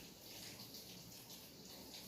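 Faint, steady night rain: an even hiss with small uneven swells, without clear single drops.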